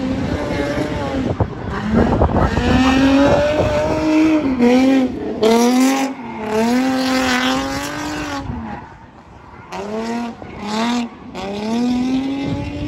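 Drift car's engine revving hard, its pitch rising and falling with the throttle as the car slides sideways, over the hiss and squeal of spinning tyres. The engine note dips briefly about nine seconds in, then picks up again.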